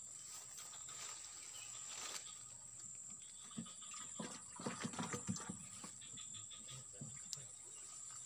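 Quiet rustling and a cluster of soft knocks, thickest about four to five seconds in, as a sack is handled among leafy undergrowth, over a steady high insect drone.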